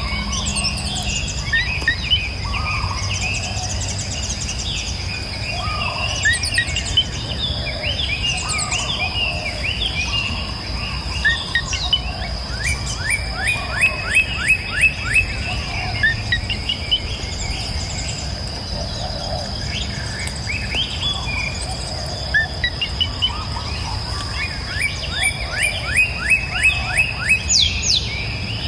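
Several wild birds chirping and singing at once, with short calls throughout and rapid runs of quick repeated chirps lasting a few seconds each, about halfway through and again near the end. A steady high-pitched tone and a low rumble sit underneath.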